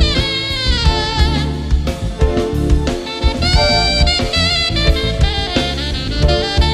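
Saxophone playing a melodic solo line with sliding, wavering notes over a live jazz band's bass line and drum kit.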